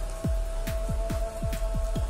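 Electronic dance music: a held synth note over a fast run of bass-drum hits that each slide sharply down in pitch, about four to five a second.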